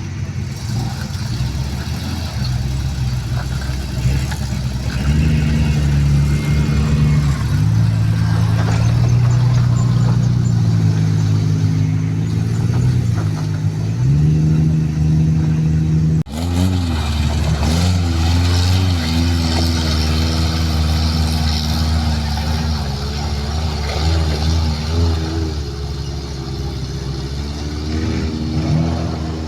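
Off-road 4x4 engine running under load, its pitch rising and falling as it is revved and eased off. The sound breaks off abruptly about halfway through and resumes with more rapid rises and falls.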